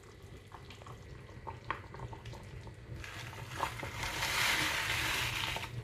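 Plastic soup-mix packets crinkling with a few small clicks as they are handled. About three seconds in comes a steady hiss as a packet of dry noodle soup mix is emptied into a pot of simmering soup; it cuts off abruptly near the end.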